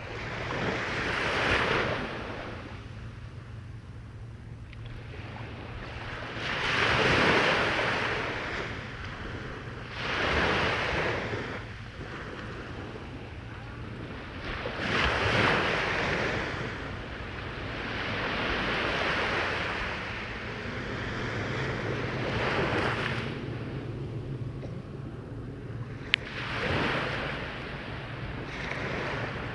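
Small waves breaking and washing up on a sandy beach: a rushing surge every three to four seconds, about seven in all, over a steady low rumble. There is a single sharp click a few seconds before the end.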